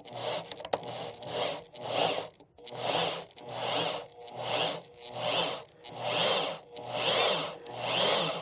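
A 2-inch bi-metal hole saw on a corded drill cutting through a plastic bumper air dam. The drill is run slowly in short bursts, about one a second, each a scraping, rasping cut with a brief pause between.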